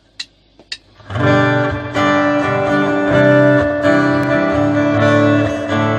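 Two sharp clicks, then about a second in a band's song starts with loud, ringing strummed guitar chords.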